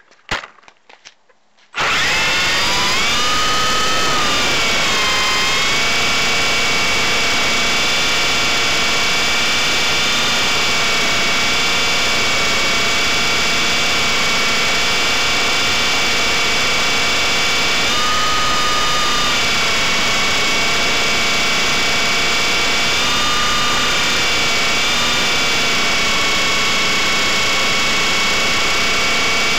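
Blade 120 SR micro RC helicopter's electric motor and rotor whining, heard loud and close from a camera mounted on the helicopter. The whine starts suddenly about two seconds in, rises in pitch as the rotor spools up, then runs steadily with small shifts in pitch as it hovers.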